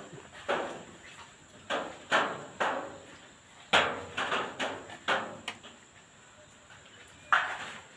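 Irregular sharp bangs, some coming in quick succession, with a pause of almost two seconds before one more near the end.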